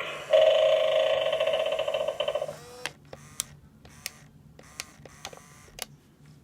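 Animated Halloween eyeball doorbell's small speaker giving a loud buzzing tone for about two and a half seconds, which then cuts off into a scatter of sharp clicks.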